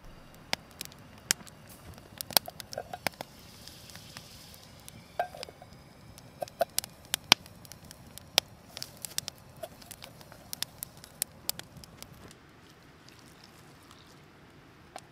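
A run of irregular, sharp clicks and taps, some louder than others, thinning out near the end.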